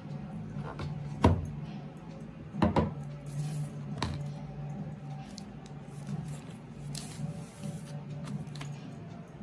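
Smartphone packaging being handled: a cardboard box and paper sleeves rubbing and rustling, with a few sharp knocks, the loudest a little over a second in and others near three and four seconds. A steady low hum runs underneath.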